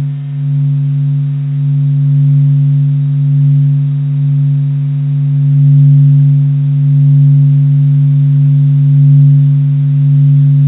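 Low, steady hum played as the sound of the Sun: a sonification of solar data, not a sound heard through air. It swells and eases slowly in loudness.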